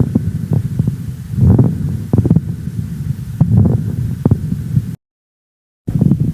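Chest sounds heard through a stethoscope during lung auscultation: low breath sounds swelling and fading, with heartbeat thumps. The sound cuts to silence for about a second near the end, then resumes.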